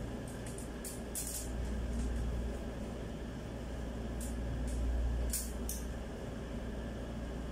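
Short metallic clicks and scrapes from handling a flaring tool's clamp bar, in two clusters: one near the start and one about halfway through. A steady low hum runs underneath.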